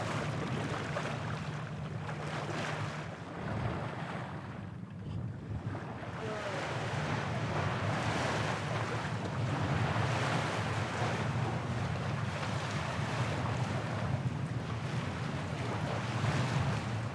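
Wind and water noise aboard an aluminium sailing catamaran under way, with wind buffeting the microphone in gusts over a steady low drone.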